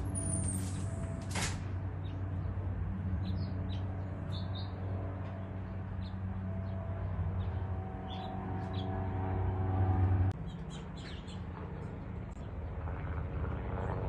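A steady low motor hum, like an engine running, that changes abruptly about ten seconds in, with a few short, high bird chirps over it.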